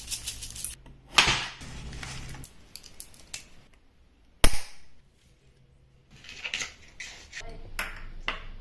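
Glass jars and a steel bowl being handled: scattered clinks and knocks, with one sharp snap about halfway through, likely a swing-top glass jar's lid being clamped shut. Near the end come small clinks of glass jars being set down.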